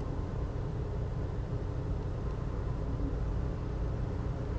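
Steady low mechanical hum and rumble, even throughout with no distinct knocks or clicks.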